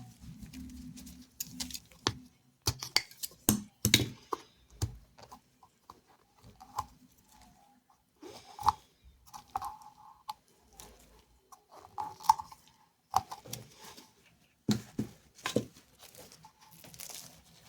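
Plastic monomer bottle and its packaging being handled: scattered sharp clicks and taps of the plastic cap and gripper top, with short crinkling rustles in between.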